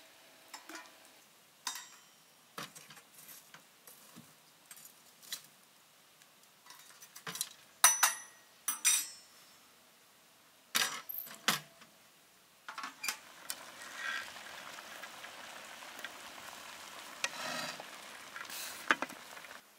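Scattered metal clanks and clinks as a samovar and its lid are handled with metal tongs and a poker, the loudest about eight and eleven seconds in. About two-thirds through, a steady bubbling sizzle of quince slices simmering in syrup in a pan takes over.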